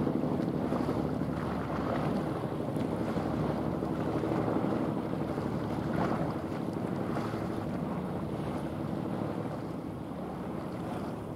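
Steady low rumble of a passing container ship's engine, mixed with the wash of its bow wave and wind buffeting the microphone.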